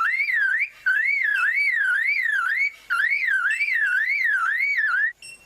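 Superb lyrebird mimicking a car alarm: a loud whistle warbling up and down, about three swings a second, in a run of phrases broken by brief pauses.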